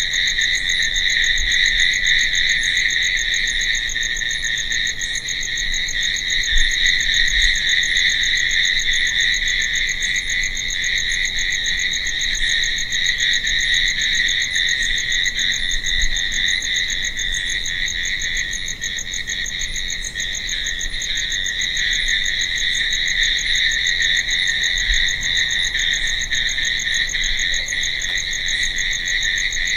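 Crickets chirping in a steady, dense night chorus, a continuous high trill that stays even throughout. Fainter high-pitched ticks repeat at an even pace on top.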